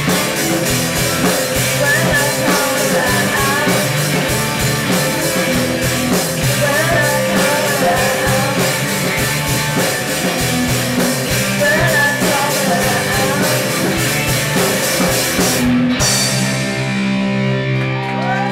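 Live rock band: drum kit, electric guitar and bass under a girl's lead vocal. About 16 seconds in the drums stop, leaving the guitar and bass chords ringing under the voice.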